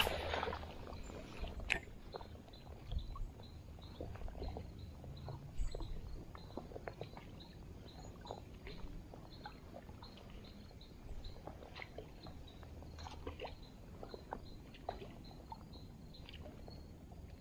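A short splash of water as a released smallmouth bass is let go at the surface, then quiet handling of a fishing rod and baitcasting reel with scattered small clicks and knocks.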